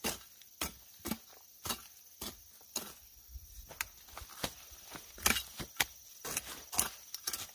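Hand hoe striking and chopping into soil and weeds in a peanut row, short strokes in an even rhythm about twice a second, coming a little faster in the second half.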